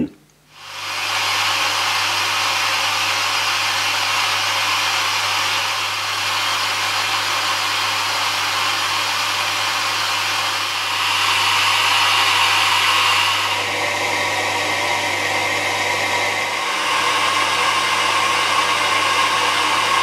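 Zanussi ZJ1217 washing machine's Jet System pump recirculating the wash water and spraying it over the laundry, which the owner takes to be mixing in the detergent. A steady rush of water over a low pump hum, starting about a second in.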